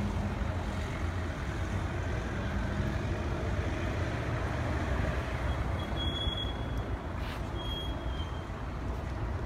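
Steady city-street noise with a low rumble, and two short high-pitched tones about six and eight seconds in.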